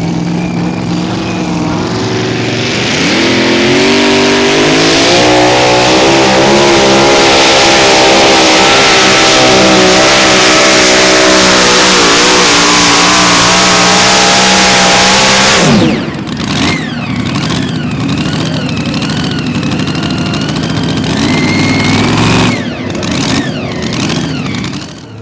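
Pulling truck's engine revving up and held at full throttle under load during a pull, loud and steady for about a dozen seconds, then cut off suddenly about 16 seconds in, dropping to a much quieter engine sound.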